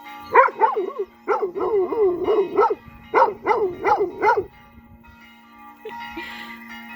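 A dog howls along to ringing church bells in three bouts of short, rising-and-falling yowls. It stops about four and a half seconds in while the bells ring on.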